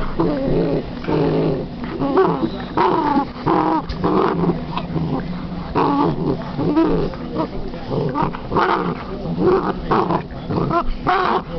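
Basset hound play-growling and whining with her toy, a near-continuous run of grumbling vocal sounds that slide up and down in pitch.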